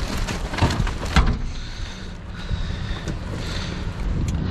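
Cardboard and junk being shifted by hand inside a metal dumpster: crackling, rustling and knocks for the first second or so, then quieter shuffling over a steady low rumble.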